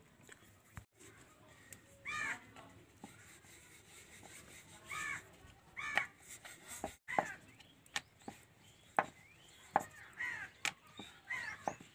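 Crows cawing in short repeated calls, with scattered sharp clicks of a metal spatula against an iron griddle.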